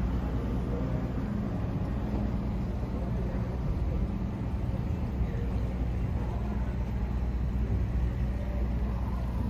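Ferry boat's engines running with a steady low hum, heard from the deck.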